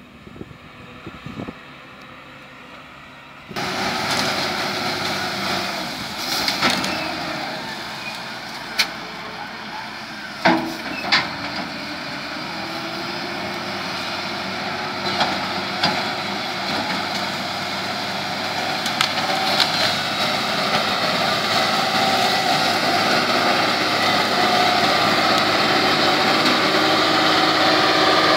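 HELI ZL35E wheel loader's diesel engine running under load as it pushes through brush, with branches and small trees snapping and cracking again and again. The engine jumps louder about three and a half seconds in and keeps getting louder as the machine comes closer.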